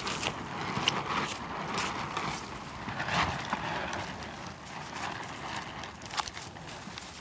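Knife scraping charred hair and skin off a singed goat head: irregular short scrapes and clicks.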